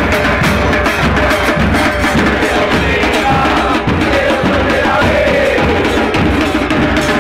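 Football supporters' bass drums (bombos) beaten in a steady rhythm, with a crowd of fans chanting along over them.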